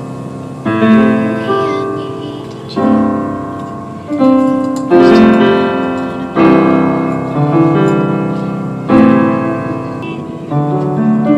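Slow piano music: chords struck every second or two and left to ring out.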